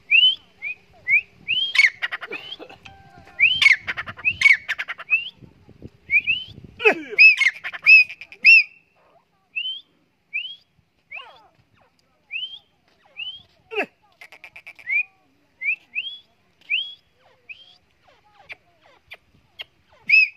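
Gray francolin calling: a long run of short, rising whistled notes, about one to two a second, crowding together in places.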